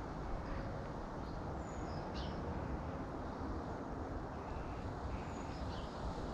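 Steady low outdoor background rumble, with a few faint, short, high bird chirps about two seconds in and again near the end.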